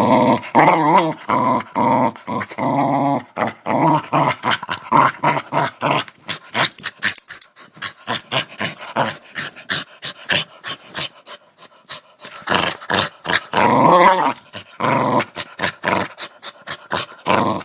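A dog growling over and over, rough pulsing growls in a string of bouts, quieter for a few seconds in the middle before loud growls resume.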